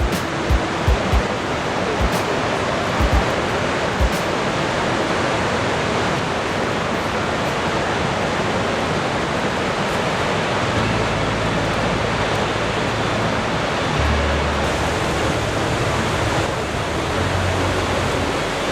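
Large waterfall rushing, a loud, steady wash of falling water. A few short low thumps in the first few seconds, and a low rumble comes and goes in the second half.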